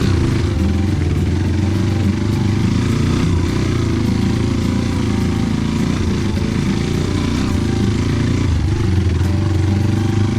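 Trail motorcycle engine running steadily under way, a low even engine note with little change in pitch.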